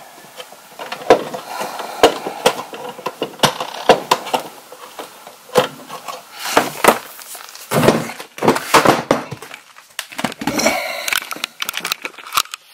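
Irregular sharp clicks, knocks and rattles of hand work on a Progressive EMS electrical protector's box: stiff electrical wire being bent and pushed toward the terminal block, with the louder knocks clustered about six to nine seconds in.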